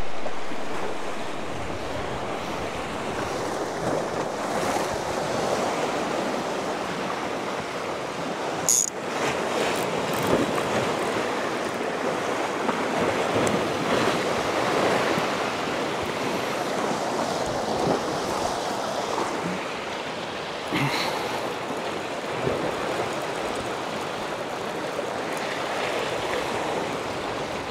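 Small waves washing over a rocky shoreline: a steady rushing surf, with a sharp click about nine seconds in and a fainter one about twenty-one seconds in.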